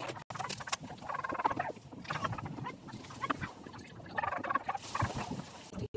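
Poultry calling in several bouts of about a second each, with a few short taps in between.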